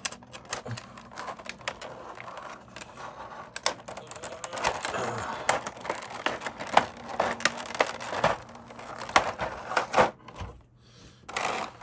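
Clear plastic blister tray crackling and clicking as hands flex and press it to work figure parts loose, with many sharp snaps.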